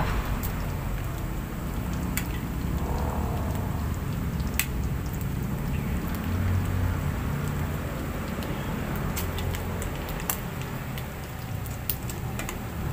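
Pork belly pieces frying in a metal pan, a steady sizzle over a low rumble, with a few sharp clicks and scrapes of a metal spatula against the pan as the pieces are turned.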